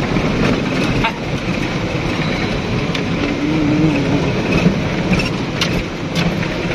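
Inside a car's cabin in heavy rain: the engine running under the hiss of rain on the windscreen, with the wipers sweeping and a few sharp knocks scattered through.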